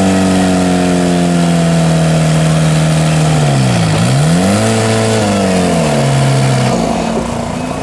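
Off-road 4x4's engine held at high revs as it churns through deep mud; about halfway through the revs drop, climb again, then fall back before fading near the end.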